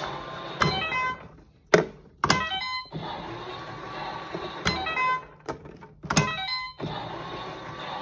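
Toy washing machine being pressed, several plastic clicks each followed by a short run of electronic beeping tones from the toy's sound chip, over a steady low hum.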